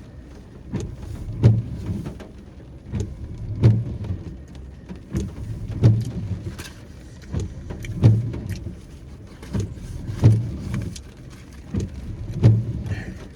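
Windshield wipers sweeping in the rain inside a parked car. Each sweep swells and ends in a thump, about every two seconds.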